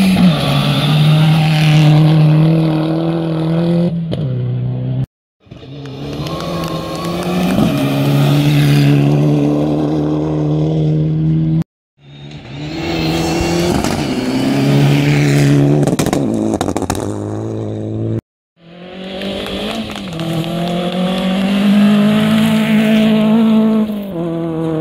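Rally cars at speed on a gravel stage, four short passes one after another, among them a Subaru Impreza and a Mitsubishi Lancer Evolution: engines revving hard, with steps in pitch at gear changes. Each pass cuts off abruptly.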